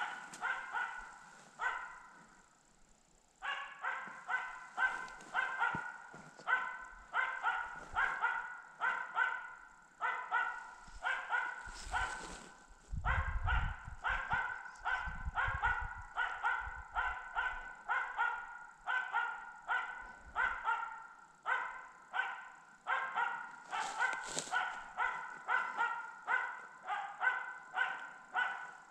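A tree-barking hunting dog gives steady stand-barking, the rapid, rhythmic baying that holds a capercaillie hen up in a pine. The barks come at about two to three a second, with a brief break about two seconds in. A low rumble on the microphone runs for a few seconds in the middle.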